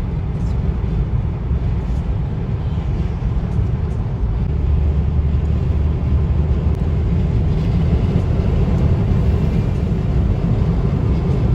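Steady low rumble of a car on the road: tyre and engine noise.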